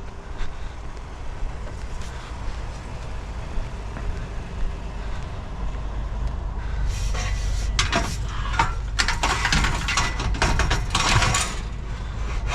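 Large scrap-metal pieces being loaded into a van, clanking and scraping in a dense run of knocks from about seven seconds in, over a low steady rumble.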